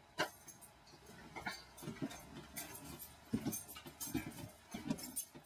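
Faint, irregular footsteps and light knocks on a camper trailer's floor, with a few small clicks.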